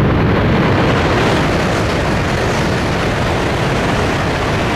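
E6-series Shinkansen train passing at high speed through deep snow: a loud, steady rush of air and flung snow that sets in just before and holds on.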